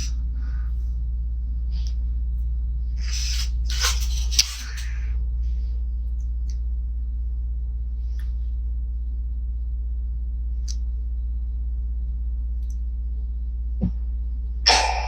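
A steady low hum, with one short noisy burst about four seconds in and a couple of faint clicks near the end.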